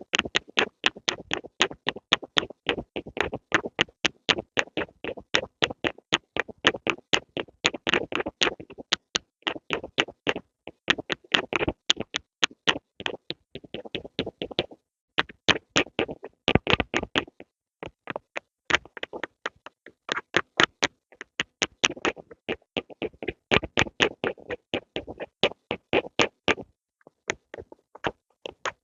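Pencil tapping and scratching in quick strokes, about four a second, with a few brief pauses.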